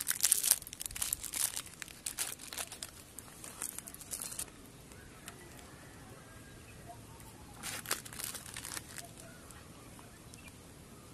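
Parle-G biscuit packet wrapper crinkling and tearing as it is opened and handled, a dense crackling rustle for the first four seconds or so. A shorter burst of the same crinkling comes about eight seconds in.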